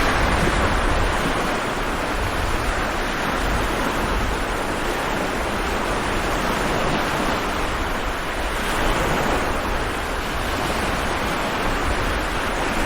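Stormy sea waves breaking and surging continuously, a dense rushing wash that swells and ebbs every few seconds.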